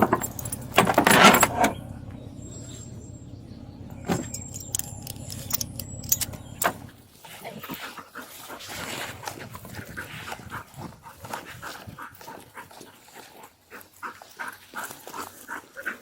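Police K9 dog barking and whining excitedly over a vehicle's idling engine. The engine hum stops suddenly about seven seconds in, after which the dog's quick, restless whimpers and panting carry on.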